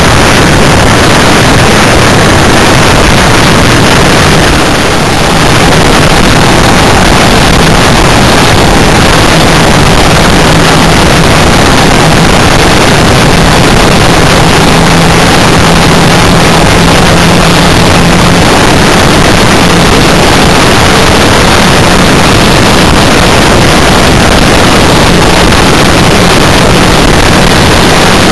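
Vehicle driving on a dusty dirt road, heard through a camera mounted on it: a loud, distorted rush of wind and road noise with a steady engine hum underneath.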